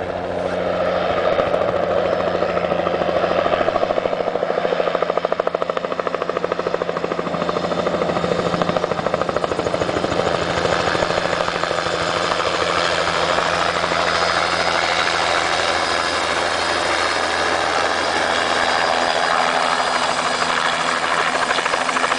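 Light helicopter coming in to land, its rotor blades beating rapidly and evenly. The sound grows louder over the first couple of seconds as it closes in, then holds steady as it descends toward the pad.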